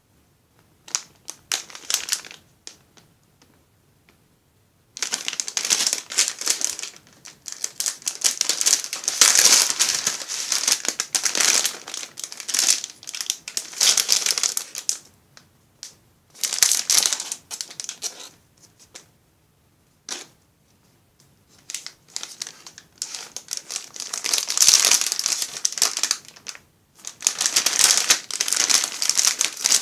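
Silver metallized anti-static foil bag crinkling and crackling in the hands as an LED strip reel is taken out of it and the bag is crumpled. It comes in bursts a few seconds long, with short pauses between them.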